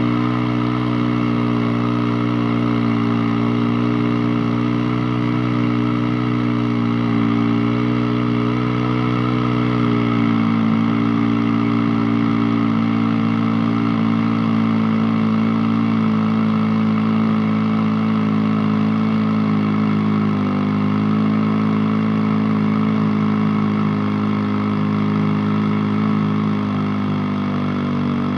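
Engine of a Rinco chainsaw over 90 years old, running steadily. Its pitch steps down slightly about ten seconds in and dips briefly again around twenty seconds in.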